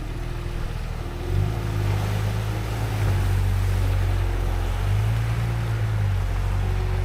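Background music with sustained low notes that change in steps, over a steady rushing noise.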